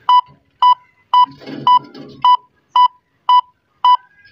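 Satellite finder beeping: short, identical electronic beeps at a steady rate of about two a second, sounding while the dish is aimed to show the signal is being received.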